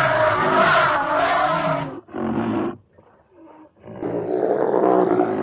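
Roaring creature sound effects: a long roar, a shorter roar about two seconds in, a brief lull, then another long roar starting about four seconds in.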